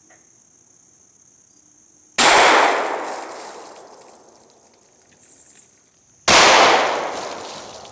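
Two shots from a Glock 40 MOS 10mm pistol, about four seconds apart: one about two seconds in and another near the end. Each is a sudden loud crack with a long echoing tail that fades over two to three seconds.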